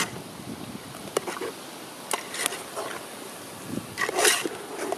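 A metal spatula stirring chicken pieces in a large metal pot, scraping against the pot a few times, loudest about four seconds in, over the steady sizzle of the frying masala.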